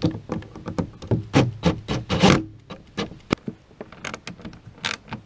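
Bolts being tightened on an anchor mount's bracket on a kayak rail: a cordless drill drives the bolt, then a wrench works the nut, giving irregular metal clicks and knocks with a short louder rasp about two seconds in.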